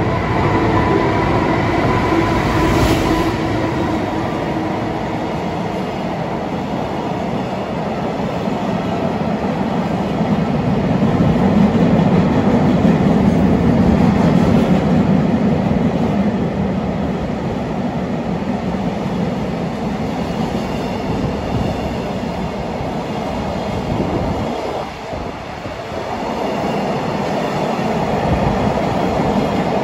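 Freight train hauled by an EF510 electric locomotive running through at speed: a steady rumble and clatter of wheels on rail as the container wagons pass, loudest around the middle. A held tone fades out in the first couple of seconds, and the noise dips briefly near the end.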